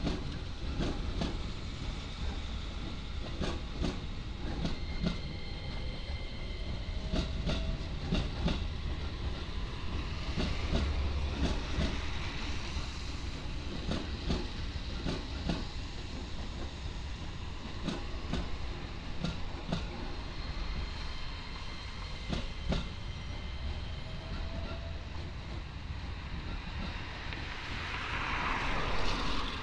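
JR East 205 series electric train rolling slowly past over jointed track, its wheels clicking irregularly over the rail joints above a steady low rumble. A louder rush of noise comes near the end as the last car goes by.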